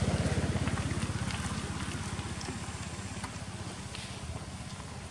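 A small engine running with a low, rapid, even pulse that slowly fades.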